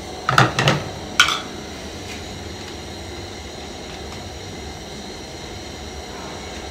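Three quick metallic clinks of a spoon against a frying pan in the first second and a half, then a steady background hiss.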